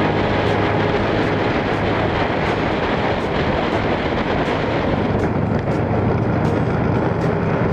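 Motorcycle engine running steadily at cruising speed, with wind rushing over the microphone while riding.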